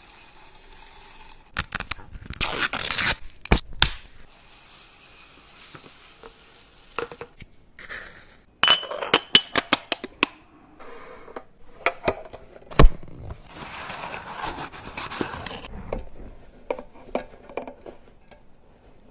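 Fridge restocking: containers, jars and packaging being handled and set down, a run of irregular clicks, clinks and rustles with one sharp knock about two-thirds of the way through.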